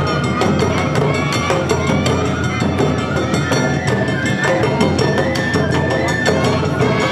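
Awa odori hayashi band playing: drums and a hand-struck kane gong keep a quick, even beat while a bamboo flute plays a held, sliding melody over it.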